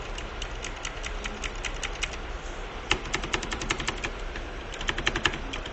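Typing on a mechanical keyboard fitted with cartoon cat keycaps: quick, irregular key clacks in bursts, with a short pause a little over two seconds in and dense typing just after.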